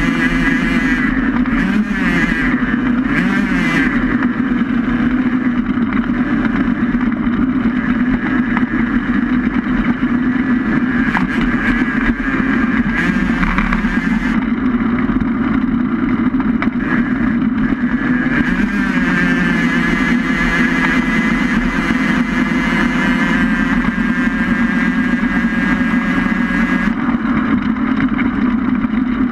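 Steady vehicle noise heard from on board a small racing vehicle moving along the road, with a tone that wavers up and down.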